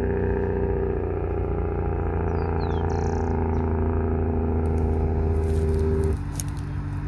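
Loaded heavy diesel truck descending on its engine brake (compression brake): a steady, rapid low chatter over a strong engine drone, which cuts off about six seconds in, leaving a quieter engine sound.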